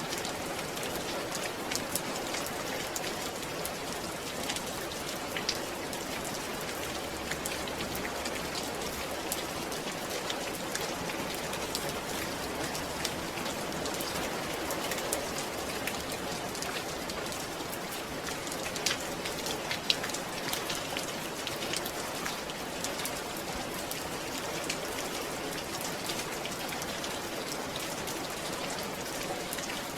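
Steady rain falling and pattering on a surface, with scattered individual drop ticks.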